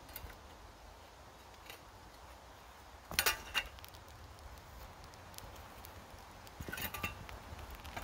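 Metal crucible lifting tongs clinking against a hot crucible as it is gripped, in two short clusters of ringing clinks about three and seven seconds in, over a faint low rumble.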